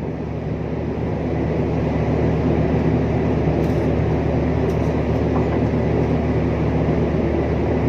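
Steady low drone of a large ship's engines and machinery, running evenly without change.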